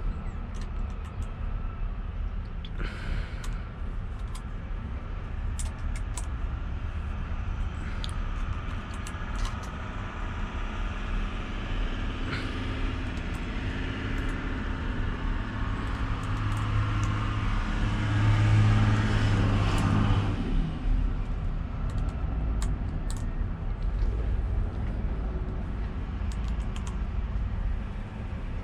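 Allen key turning the bolts of a steering wheel on its hub: scattered small metal clicks and ticks over a steady low rumble. An engine hum builds through the middle and cuts off suddenly about twenty seconds in.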